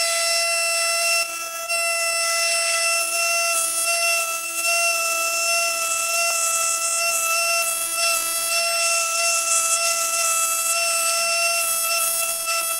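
Handheld fossil-preparation scribe running with a steady high-pitched whine and hiss, its vibrating needle tip chipping limestone matrix away from an ammonite.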